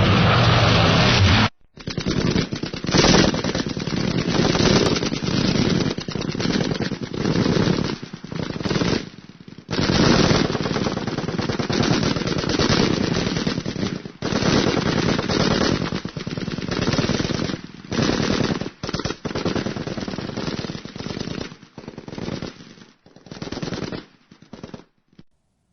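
Machine-gun fire in long rapid bursts with short pauses between them, thinning to scattered shots and stopping near the end. Before it, a steady droning sound cuts off suddenly about a second and a half in.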